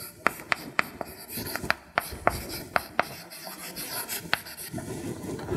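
Chalk writing on a blackboard: scratchy strokes broken by a series of sharp, irregular taps as the chalk strikes the board.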